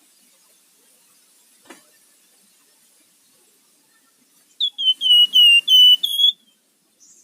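Flamboyan (wergan jawa, Javan fulvetta) singing: a quick run of about seven short, high, falling whistled notes midway through, lasting under two seconds, with a faint click before it.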